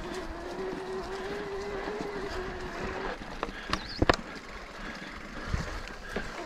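Specialized Turbo Levo e-mountain bike's mid-drive motor whining steadily under pedal assist, cutting out about three seconds in and starting again at the very end. While it is off, the bike gives a few sharp knocks and rattles, the loudest a little after four seconds.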